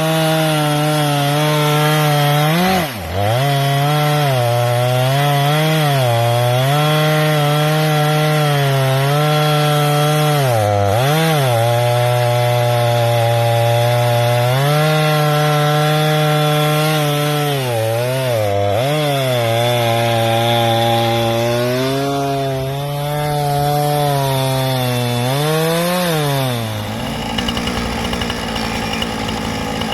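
Chainsaw engine driving an Alaskan chainsaw mill through a log, run at high revs with its pitch sagging and recovering every few seconds as the cut loads it. Near the end the engine note gives way to a steady rushing noise.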